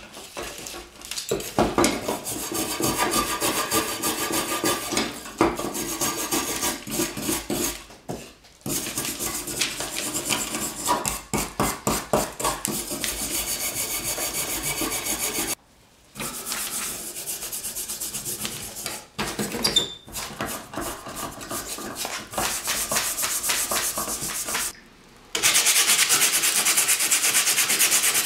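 Wire brush scrubbing surface rust off a steel leghold trap in rapid back-and-forth strokes, with a few brief pauses. Near the end an abrasive pad rubs over the steel, louder and hissier.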